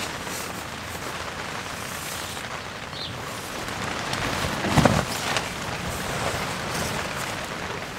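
Rain and wind on the tent and the tarps overhead, a steady patter and rush, with one louder buffet of wind about five seconds in.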